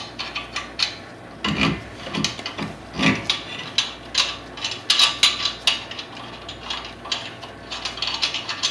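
Lug nuts being spun off the wheel studs by hand, with irregular metal clicking and scraping against the loosened brake rotor.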